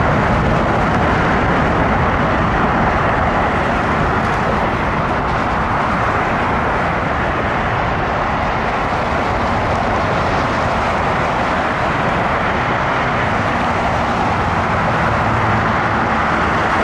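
Steady jet roar from a taxiing Boeing C-17 Globemaster III's four turbofan engines, blended with road traffic passing close by.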